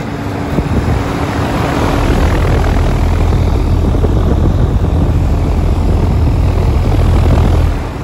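1987 Carrier Round One condenser unit running: its fan and Carlyle reciprocating compressor make a steady, deep machine rush. It grows louder and heavier with the camera held close over the fan's discharge grille, then drops away just before the end.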